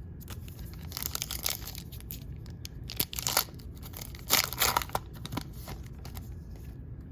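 Foil wrapper of a trading card pack being torn open and crinkled, in several short rustling bursts, loudest about three and four and a half seconds in.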